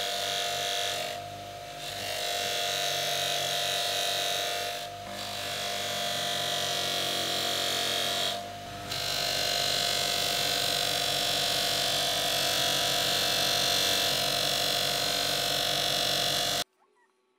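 Bench grinder running with a steel ball peen hammer head pressed against its spinning polishing wheel: a steady motor hum with a hiss from the metal on the wheel. The sound dips briefly three times and cuts off suddenly near the end.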